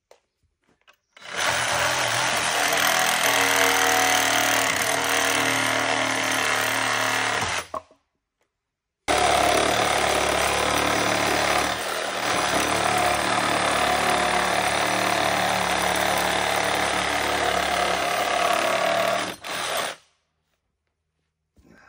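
Yellow cordless impact driver hammering long screws into timber: two long runs, the first about six seconds, the second about eleven seconds after a short pause.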